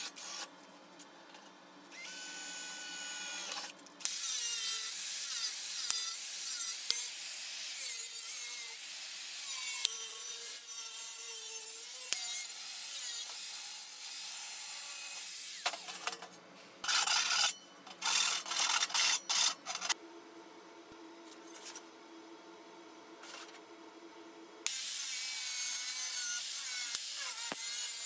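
A power tool working on metal in several runs: a short run, then a long one of about eleven seconds, a few short bursts, and another run near the end.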